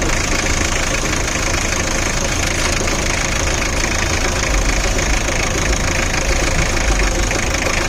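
Nissan R2 engine running steadily at idle.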